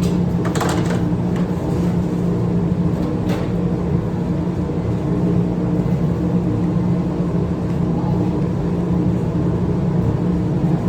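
A steady machine drone with a low, even hum, broken by a couple of brief scraping or clicking noises in the first few seconds.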